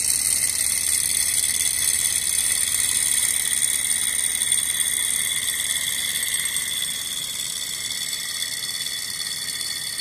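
Small alpha-type hot-air Stirling engine model running steadily on its alcohol-lamp flame: a high-pitched mechanical whir and whine from its pistons and flywheel, getting slightly fainter in the second half.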